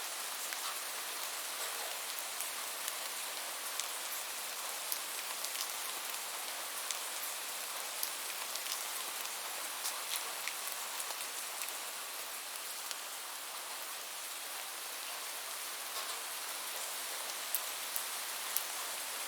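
Steady rain falling: an even hiss with many individual drops ticking sharply over it.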